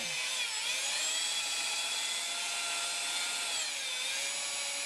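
Corded electric drill spinning a rubber adhesive-removal (eraser) wheel, a steady whine whose pitch dips and recovers twice, about half a second in and near the end, as the wheel bears on the tailgate paint to rub off leftover trim-strip adhesive.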